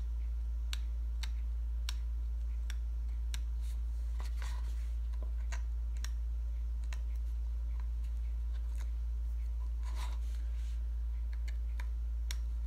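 Scattered light clicks and short scratches as a pointed metal tool picks at the protective backing of tape stuck on a card box, over a steady low hum.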